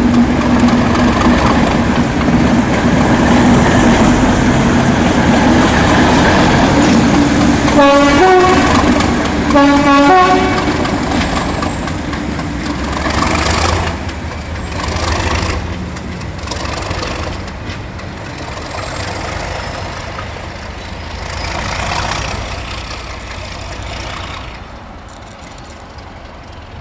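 A diesel train running close by sounds two short two-tone horn blasts about two seconds apart, then its engine noise fades steadily as it moves away.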